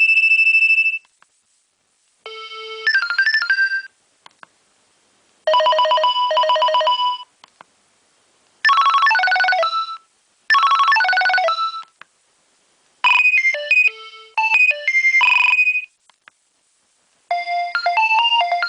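Nokia 2300 mobile phone ringtones: a run of short electronic ringtone melodies, each lasting a second or two, cut off and followed by a brief silence before the next one starts.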